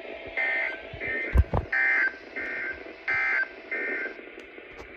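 Emergency Alert System end-of-message data bursts: short two-tone digital warbles repeated in quick succession, six in all, alternately louder and fainter, as if two feeds were sending the same code slightly offset. They signal the end of the broadcast warning. Two short low thumps come about a second and a half in.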